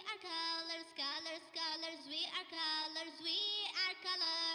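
Background music for a children's video: a high melody line in short phrases, its voice-like lead bending in pitch between notes.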